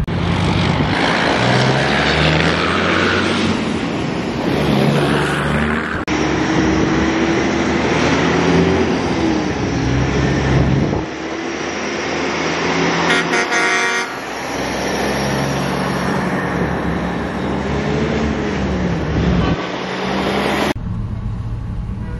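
Semi trucks driving past with diesel engines running and air horns sounding in repeated blasts, some held tones sliding in pitch. The sound changes abruptly several times where the recording cuts between passing trucks.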